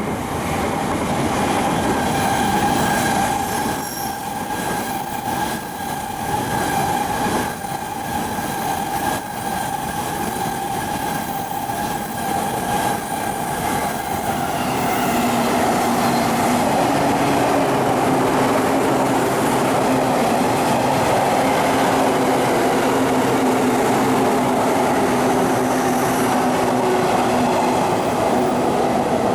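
JR East electric commuter trains running through a station, with rail noise and steady high whining tones from the wheels and motors. About halfway through the sound grows louder and a lower set of whining tones joins in.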